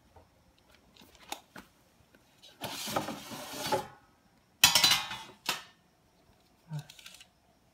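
Tabletop handling sounds: a few clicks, a rustle lasting over a second, then a loud clattering rattle and a sharp knock as things are moved and a retractable tape measure is picked up.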